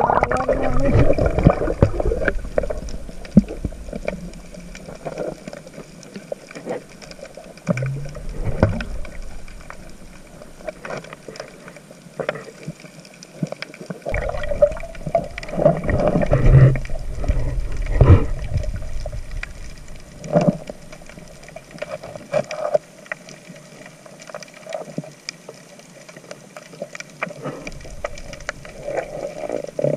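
Underwater sound from an action camera in its waterproof housing: muffled water noise and low rumble, with scattered clicks and knocks. The noise is louder near the start and again about halfway through.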